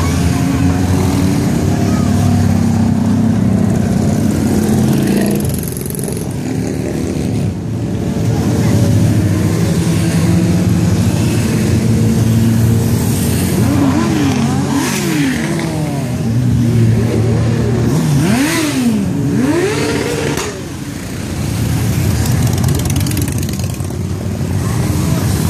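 A procession of motorcycles riding past, many engines running at once. In the middle several riders rev hard, the engine pitch rising and falling repeatedly.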